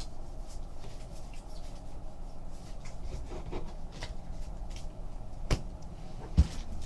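Trading cards being handled and slid against one another, with soft rustles and small clicks, then a sharp tap about five and a half seconds in and a low thump near the end.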